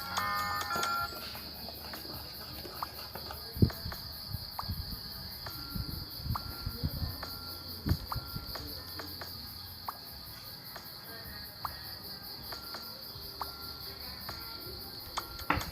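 A steady, high-pitched, rapidly pulsing insect chorus, crickets by the sound, with scattered light clicks and knocks over it.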